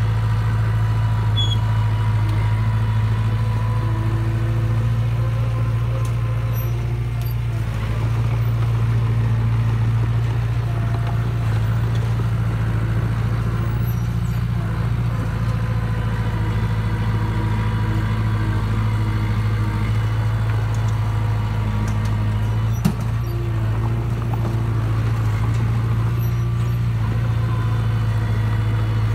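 Small crawler bulldozer's diesel engine running steadily as it pushes soil with its blade, a deep even hum. One brief sharp click about three-quarters of the way through.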